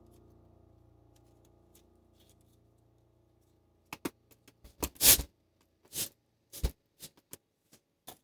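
A faint hum dies away into a few seconds of near silence. Then comes a run of sharp clicks and knocks from objects being handled, with a short noisy scrape about five seconds in.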